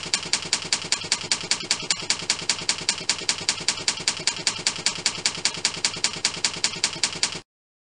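Typewriter key-strike sound effect: a rapid, evenly spaced run of clacks, about five a second, that cuts off abruptly near the end.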